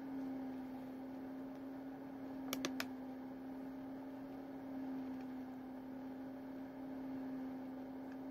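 Steady low electrical hum in a small room, with three quick sharp clicks a little after two and a half seconds in.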